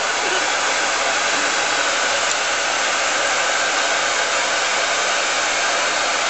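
Handheld hair dryer running steadily, blowing onto a wet rabbit's fur: an even rush of air with a faint low hum underneath.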